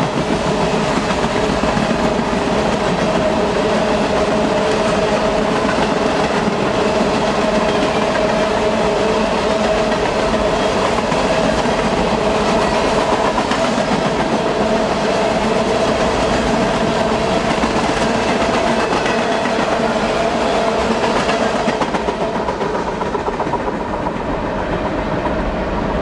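Freight train of boxcars and refrigerated juice boxcars rolling past on the rails: a steady rumble and clatter of wheels with a steady tone running through it, easing off a little near the end as the last cars go by.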